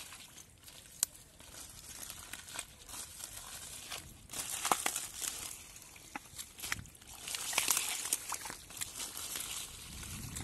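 Hands pushing through water hyacinth leaves and wet mud: a crinkling rustle of leaves with scattered small clicks, louder in bursts about four seconds in and again near eight seconds.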